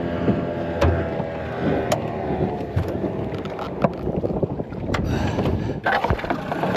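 Mercury outboard motor idling steadily, with a handful of sharp knocks as hands work the motor and the boat's fittings.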